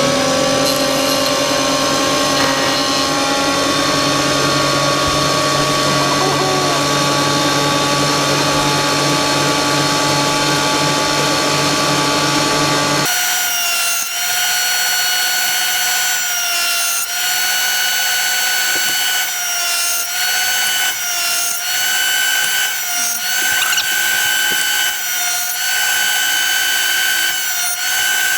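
Einhell TC-SP 204 planer thicknesser running at speed with a steady motor whine, as a warped oak offcut is planed at a 0.5 mm cut. About halfway through the sound changes suddenly to a higher, thinner whine with irregular clicks and knocks.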